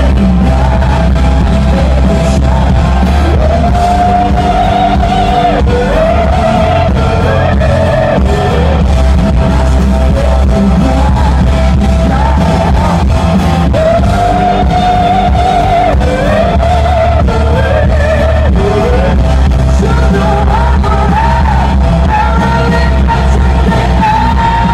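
Live rock band playing with a singer over it, loud and continuous, with heavy, booming bass. The recording sounds poor.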